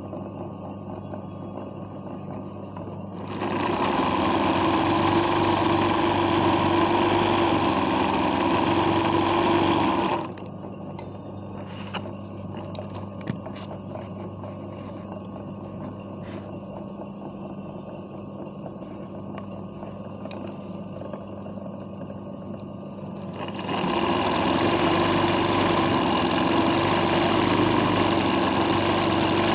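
Sewing machine doing hoop embroidery, running fast and steadily in two runs: from about three seconds in to about ten seconds, and again from about twenty-four seconds on. Between the runs there is only a steady low hum and a few light clicks.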